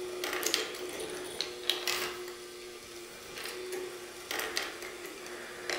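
Handmade wooden marble machine running: pachinko-ball-sized steel balls roll along wire rails and click and clatter against wire and wooden parts at uneven intervals, over a faint steady hum.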